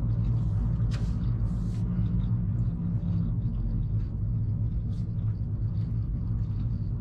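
Steady low rumble of a car running, engine and road noise heard from inside the cabin.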